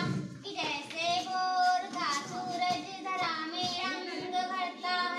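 A girl singing a song in Hindi solo, with long held notes in a high voice.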